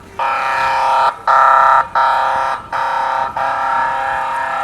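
Loud buzzing horn sounded in about five blasts of uneven length with short breaks between them; the last blast is held for over a second.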